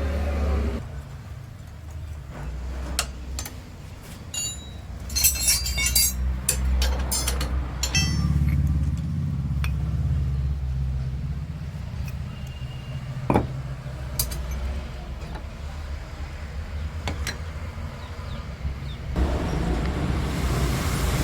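Metal tools and parts clinking and clicking in a cluster of sharp strikes a few seconds in, with a single knock later, during motorcycle engine work. A steady low mechanical hum runs underneath, and a broader noise rises near the end.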